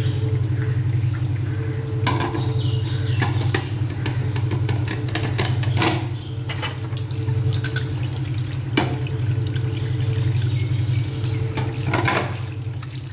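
Tap water running into a stainless-steel kitchen sink as dishes are rinsed by hand, with a few short clinks of plates. A steady low hum runs underneath.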